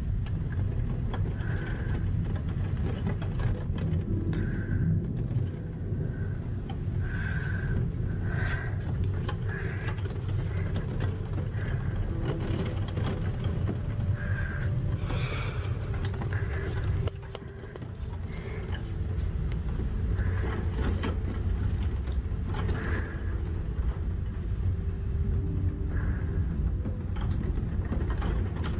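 Storm wind buffeting a phone microphone: a steady low rumble, with faint short high chirps and light ticks over it. It dips briefly about two-thirds of the way through, then carries on.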